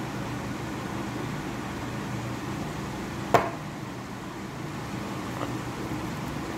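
Steady low mechanical hum, like a room fan running, with one sharp knock about three and a half seconds in.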